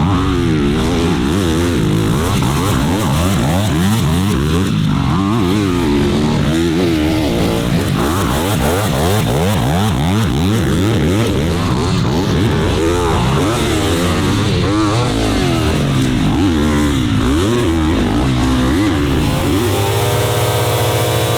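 Motocross dirt bike engines revving hard, pitch climbing and dropping again and again as the bikes accelerate, shift and back off around a track.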